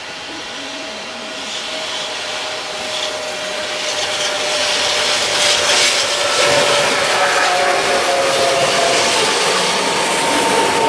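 TER 2N NG double-deck electric multiple unit approaching and passing at speed, growing louder until about halfway through and then holding, with a steady whine over the rush and rumble of the wheels on the rails.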